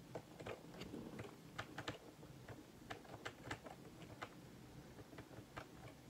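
Faint computer keyboard typing: irregular sharp clicks, about three a second, over a low steady hum.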